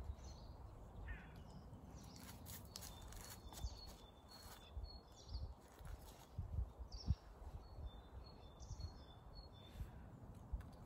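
Wild songbirds chirping faintly in short scattered notes, with low thumps and a low outdoor rumble underneath.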